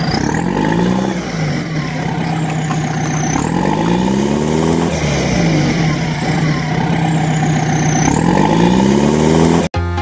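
A vehicle engine sound revving in slow repeated rises and falls of pitch, with a high whine sweeping up and down alongside it about every four seconds. It cuts off abruptly near the end.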